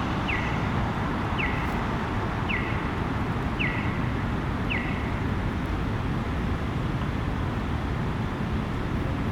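Accessible pedestrian crosswalk signal chirping: short falling chirps repeating about once a second, five of them, stopping about five seconds in. Steady road traffic runs underneath.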